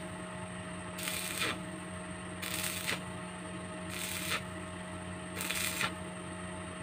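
Stick arc welding on steel tubing: the electrode crackles and sizzles in four short bursts, about every second and a half, over a steady electrical hum.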